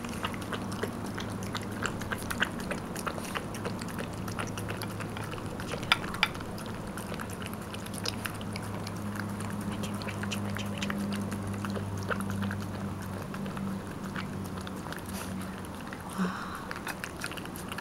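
A long-haired white cat lapping chicken-steak juice from a small dish: a quick, continuous run of small wet licking clicks, with a low steady hum underneath.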